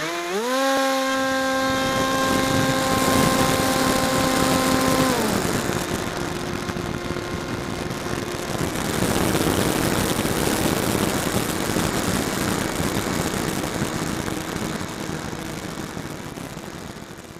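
Model airplane's motor and propeller heard from an onboard camera: the whine rises quickly as the throttle opens at launch, holds steady for about five seconds, then drops to a lower, fainter tone as it is throttled back. Heavy wind rush over the camera's microphone runs under it throughout.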